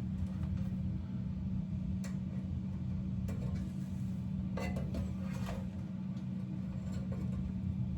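A few light clicks and rattles from a wire being fed through a hole in a small display box, over a steady low hum.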